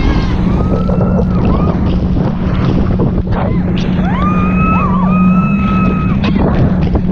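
Wind buffeting the microphone and water rushing and splashing around a speeding inflatable boat, over a boat engine's steady hum. A high cry rises and holds briefly about half a second in, and again at about four seconds for some two seconds.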